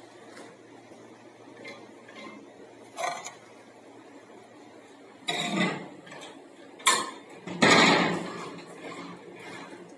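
Metal parts clanking and clattering: a short clatter about three seconds in, then three louder clanks and rattles between about five and eight seconds in, the last one the longest.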